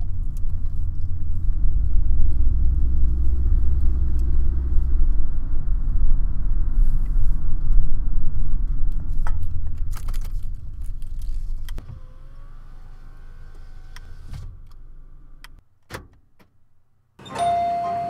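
Road and wind noise from a car driving at speed, a steady low rumble that drops away about twelve seconds in. A few sharp clicks follow, and near the end a car's steady door-open warning chime sounds as the driver's door is opened.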